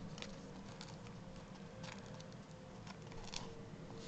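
Faint rustling and light ticks of thin tissue paper cut-outs being handled and laid on a canvas.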